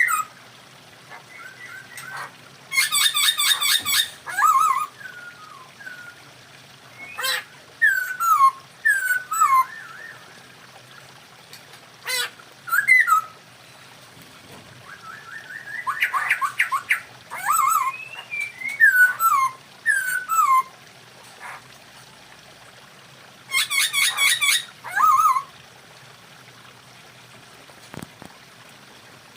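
Poksay hongkong laughingthrush singing in short phrases of slurred, falling whistled notes mixed with harsh rattling bursts, with pauses between phrases and a quiet spell near the end.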